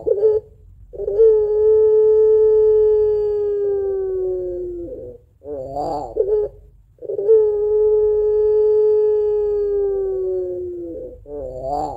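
Puter pelung dove (domestic ringneck dove) giving its long 'crying' call: a steady held coo, sliding slightly down in pitch over about four seconds, then a short wavering coo. The pair comes twice.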